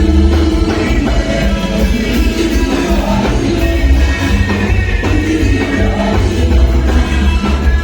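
Music with singing over a heavy, steady bass line.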